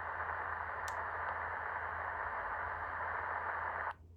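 Portable radio receiver's speaker hissing with steady static, as from an untuned band, its sound narrow and thin; it cuts off suddenly near the end.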